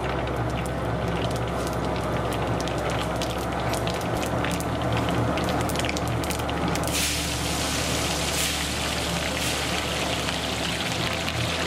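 Spices crackling and popping in hot oil in a cast-iron kadai, a tempering at the start of cooking upma. About seven seconds in, a louder, steady sizzle takes over as the oil foams up, over a low steady hum.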